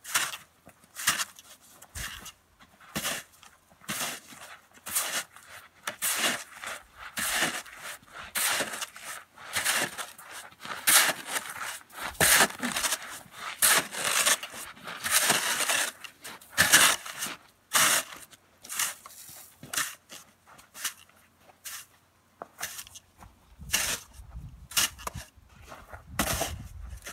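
Snow shovel scraping over packed snow and ice in repeated strokes about a second apart, with some longer, louder scrapes in the middle.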